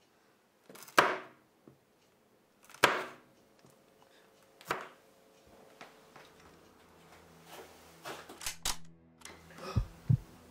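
Chef's knife chopping on a plastic cutting board: three sharp chops about two seconds apart, followed by a few fainter knocks. Near the end, low thumps start over a low steady hum.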